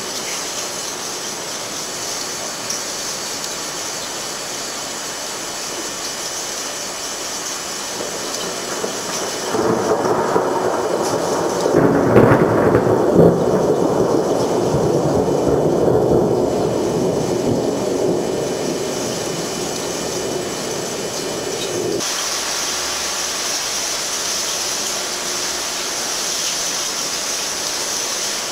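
Steady hiss of heavy rain, with a long rolling peal of thunder that starts about a third of the way in, is loudest with a few sharp cracks a couple of seconds later, and rumbles on for about twelve seconds before stopping abruptly.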